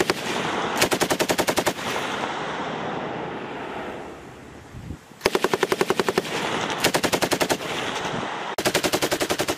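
A belt-fed machine gun firing short bursts from its bipod. Four bursts of about a second each, at a fast even rate of fire, plus the end of one just as the sound begins.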